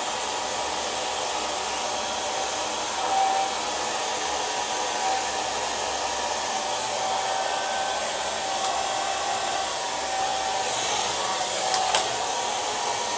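Handheld hair dryer running steadily, blowing air onto slicked-back hair: a steady rush of air with a faint whine.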